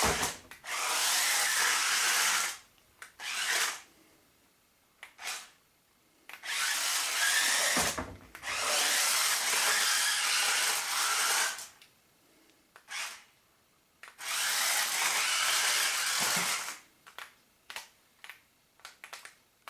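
Battery-powered RC stunt car's electric drive motors and gearboxes whirring in runs of one to three seconds, with quiet gaps and short blips between them. Near the end come several quick blips in a row.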